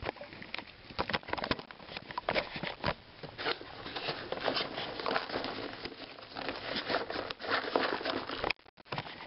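Clear plastic tackle utility boxes being handled and pulled out of a soft tackle bag: continuous rustling with scattered clicks and plastic knocks. It drops off suddenly near the end.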